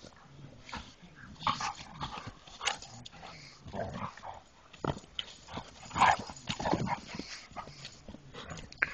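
Black Labrador retriever making short, irregular vocal noises during rough play, with the loudest about six seconds in.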